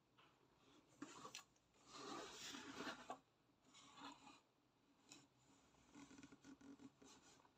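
Cardboard box rubbing and scraping against hands as it is turned over, in a series of faint scratchy bursts, the longest and loudest about two seconds in.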